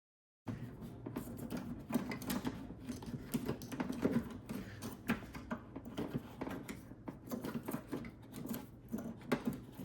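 Wiring harness being worked out of a plastic headlight housing: irregular small clicks, rattles and rustles of plastic connectors and wires, starting about half a second in.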